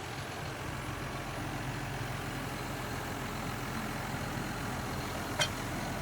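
Farm tractor engine running steadily with a low hum. A single sharp metallic click sounds about five seconds in.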